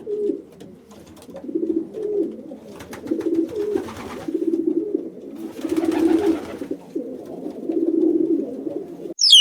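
Pigeons cooing: a continuous series of low, rolling coos, one phrase about every second. A short, sharp, high call sweeping downward cuts in at the very end.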